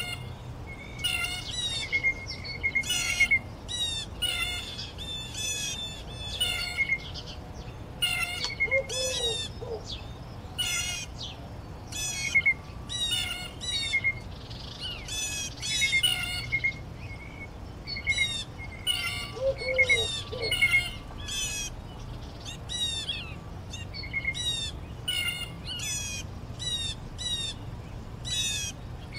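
Songbirds singing: short, high, sweeping phrases repeated in quick succession, several a second at times, over a low steady rumble.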